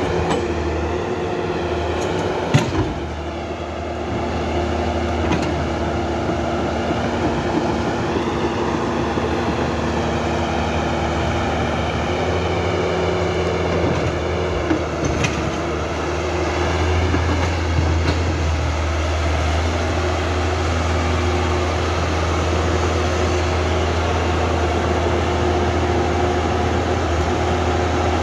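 Remote-control toy excavator's electric motors and gears whirring steadily as it drives and works its arm in sand, with a couple of sharp clicks.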